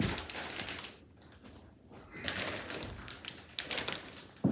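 Irregular knocks, scuffs and rustling of furniture being handled, with a sharp thump near the end.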